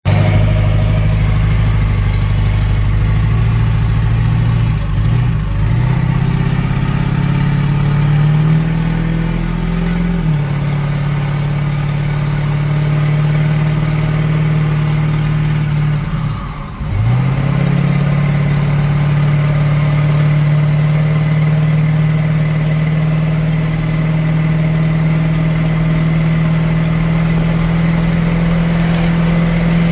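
Dump truck's diesel engine running with a steady high turbocharger whistle over it. The engine speed rises about a third of the way in, dips sharply for a moment past halfway and climbs back, then holds steady.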